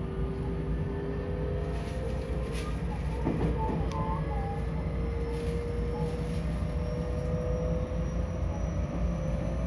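Interior running noise of a JR West 225-100 series electric train: a steady low rumble of wheels on rail, with a motor whine that climbs slowly in pitch as the train gathers speed. A few short, faint squeaks come about three to four seconds in.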